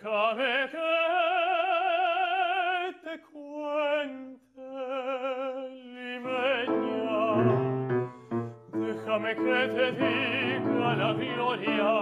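Lyric tenor singing an operatic piece with wide vibrato on long held notes, accompanied on grand piano. The piano part fills out with lower notes from about six seconds in.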